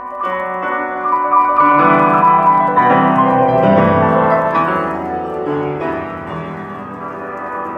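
Piano music played from a CD through RadioShack Optimus STS-1230 loudspeakers with upgraded crossovers, heard close up to the speaker drivers.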